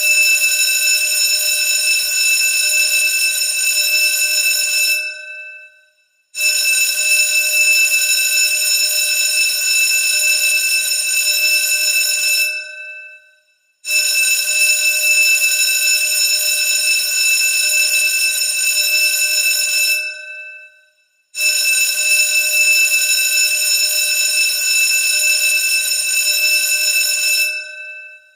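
Loud school bell ringing in repeated long rings of about six seconds each, with a pause of about a second and a half between them. Each ring starts suddenly, holds steady, then tails off.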